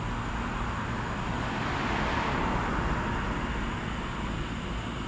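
Motorcycle engine idling with a steady low rumble, while a car passes on the street, its tyre and engine noise swelling to a peak about two seconds in and then fading.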